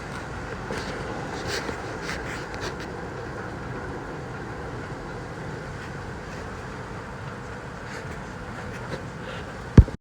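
Strong tropical-storm wind blowing steadily, a constant rushing rumble with a few faint ticks. A single sharp thump near the end.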